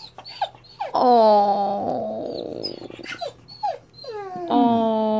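Six-month-old puppy crying: short high whines, then a long held howl about a second in, more short whines, and a second long howl starting near the end. It is crying at another dog seen outside the window.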